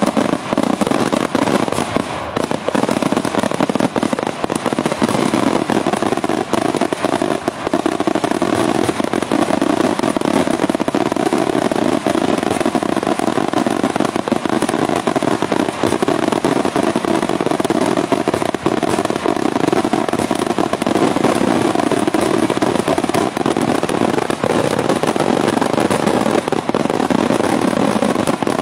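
Pirotecnica Cavour daytime fireworks: a dense, unbroken barrage of bangs and crackling, the reports coming too fast to count and merging into one loud, steady din.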